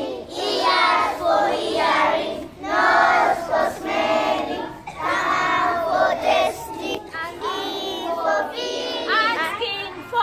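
A group of young children singing together, unaccompanied, in short phrases.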